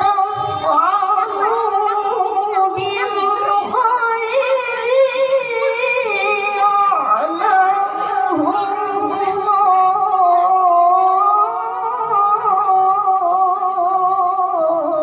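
A boy reciting the Quran in the melodic tilawah style into a handheld microphone, with long drawn-out notes and ornamented, wavering pitch.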